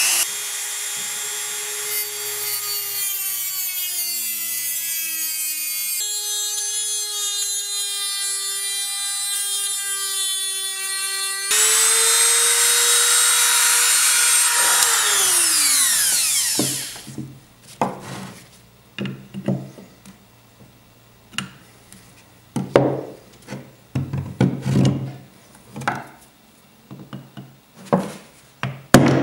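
Corded Dremel rotary tool running on high speed with a steady high whine, grinding at the metal of the transmitter housing, its pitch sagging a little under load; it winds down about 15 seconds in. After that come scattered scrapes and clicks of a thin metal tool prying inside the housing.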